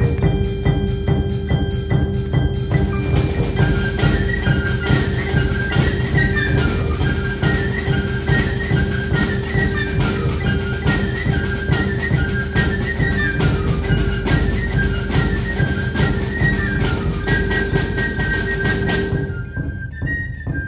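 A girls' drum corps playing: fast, dense snare drumming over a held low note, with a high flute melody coming in about three seconds in. About nineteen seconds in the drumming stops and softer held notes remain.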